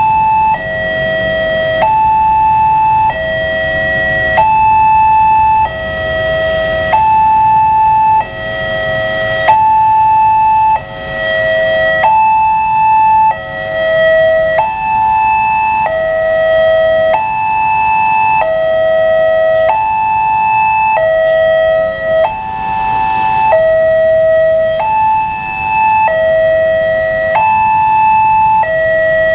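Level-crossing warning alarm sounding while the barrier is down, warning of an approaching train: an electronic two-tone signal that alternates between a lower and a higher tone about every 1.3 seconds.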